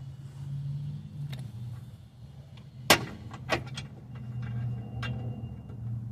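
Sharp metallic clanks of tools or parts being handled during suspension work, the loudest about three seconds in and another half a second later, over a low steady hum.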